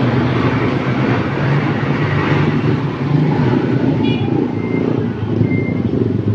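A tour bus's diesel engine running close by with a steady low hum, swelling about two seconds in. From about four seconds in, a few short high beeps of a reversing alarm sound.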